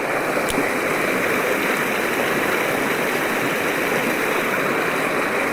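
Creek water running with a steady, even rush.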